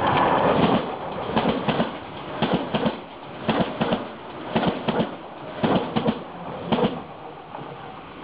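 Electric commuter train passing close by, its wheels clattering over a jointed rail in quick double clicks about once a second. The rushing noise of the train fades after the first second, and the clicks die away near the end as the last car clears.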